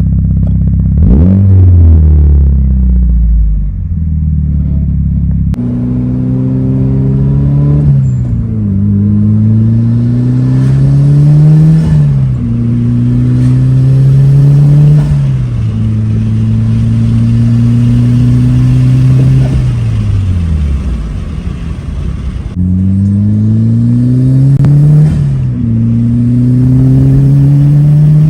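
2003 Mitsubishi Lancer Evolution's engine running under load, its revs climbing for a few seconds and then dropping back, over and over, with one longer steady stretch in the middle.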